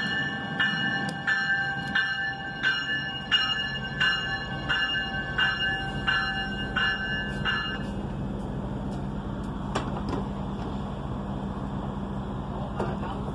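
A Stadler GTW diesel light-rail train's bell ringing in even strikes, about three every two seconds, as the train pulls into the station; the ringing stops about eight seconds in. After that the train's diesel engines hum steadily as it stands at the platform, with a couple of clicks near the end.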